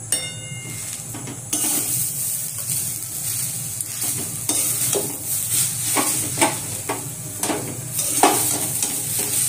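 A flat steel spatula stirring grated coconut and jaggery in a steel wok over the gas, with repeated scrapes against the metal and a steady hiss from the hot pan. The hiss comes in about a second and a half in. This is the stage where the jaggery is being melted and worked into the coconut for coconut-jaggery laddoos.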